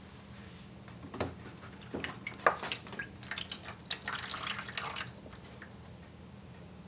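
Wet photographic paper lifted out of a plastic tray of processing liquid, with a few light knocks and splashes, then liquid streaming and dripping off the print back into the tray for about two seconds before it trails off.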